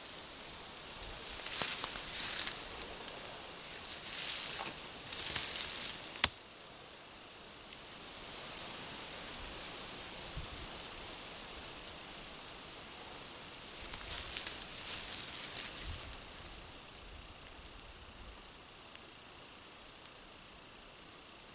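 Rustling in three bursts of a few seconds each, with a single sharp click about six seconds in.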